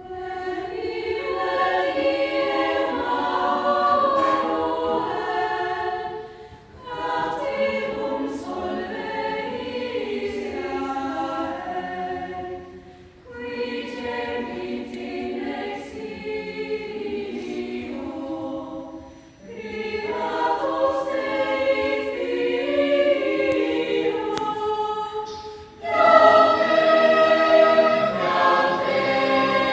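Lucia choir singing in phrases about six seconds long, each separated by a brief breath pause; the last phrase comes in louder.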